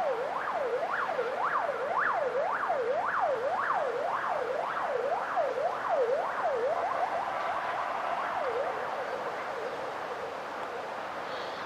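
Electronic siren in a fast yelp, its pitch sweeping up and down about twice a second; it fades and breaks up about two-thirds of the way through.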